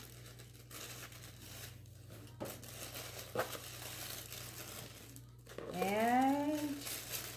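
Tissue paper rustling and crinkling as it is pulled apart and unfolded from a shoe box. Near the end a voice makes a drawn-out sound that rises and then falls in pitch, louder than the paper.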